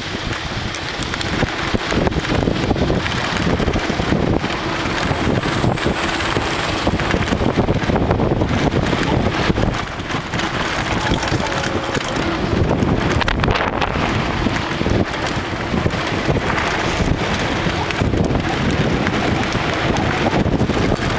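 Wind rushing over the microphone of a camera on a mountain bike riding down a dirt trail, with the tyres rolling over dirt and many small knocks and rattles from the bike going over bumps.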